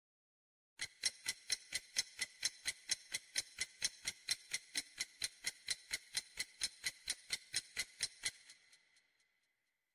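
Clock-tick sound effect counting down a quiz answer timer: evenly spaced sharp ticks, about four a second, that stop about a second and a half before the end.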